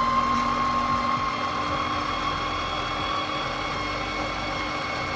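Electric juicer motor running with a steady whine.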